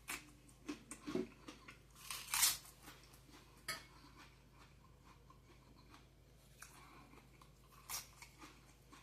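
A person chewing food close to the microphone, with scattered small clicks and a few crisp crunches, the loudest about two and a half seconds in.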